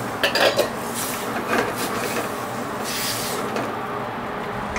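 A spoon stirring and scraping a pan of beans and tomatoes: three short scrapes, just after the start, around one and a half seconds in and around three seconds in, over a steady background hiss.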